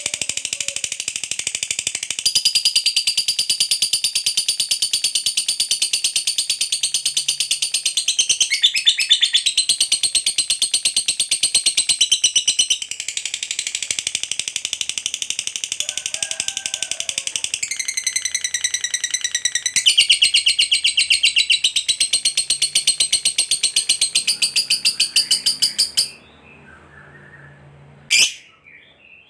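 Fischer's lovebird singing a long, rapid, high-pitched chattering trill (ngekek panjang) that runs unbroken until it stops abruptly near the end. Two short sharp calls follow just before the end.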